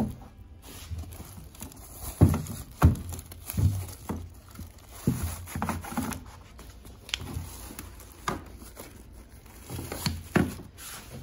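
Cloth rags and black plastic bags rustling and crinkling as a hand digs through the packing in a plastic tote, with irregular soft knocks as the wrapped parts and the tote are bumped.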